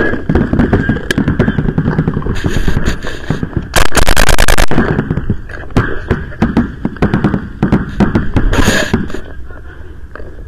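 Planet Eclipse CS1 paintball marker firing in quick strings. The loudest is a very fast string of about ten shots in a second near the middle, with shorter strings before and near the end and scattered single pops and knocks in between.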